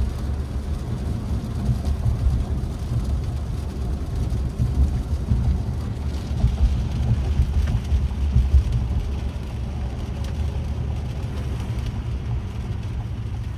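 Interior noise of a 2024 Acura TLX sedan on the move in heavy rain: a steady low rumble of tyres on the wet road, with a light hiss of rain and spray above it.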